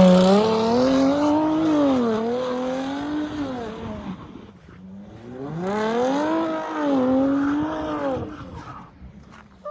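Car engine revving hard, its pitch swinging up and down as the wheels spin and the car slides on snow. The revs drop away about halfway through, pick up again with more rising and falling, then die down near the end.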